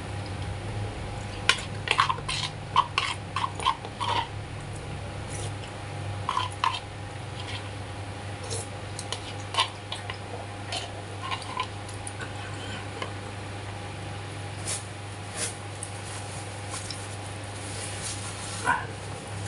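Spoon clicking against a plastic bowl, several quick taps in a row in the first few seconds, then scattered lighter clicks and eating sounds over a steady low hum.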